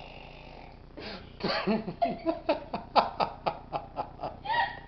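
Laughter: a run of quick pitched bursts, about four a second, starting about a second in and stopping near the end.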